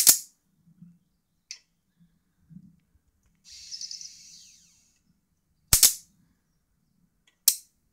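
High-voltage sparks from a Mitsubishi CRT monitor's flyback output jumping the gap to the grounded steel chassis: a sharp snap at the start, a double snap near six seconds and another just before the end, with a short hissing crackle around four seconds. The loudness of each crack comes from the flyback's large built-in capacitor discharging through the arc.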